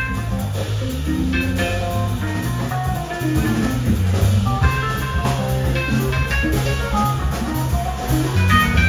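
Live band playing: an electric guitar picks single-note lines over a drum kit and an electric keyboard, with a steady low bass line underneath.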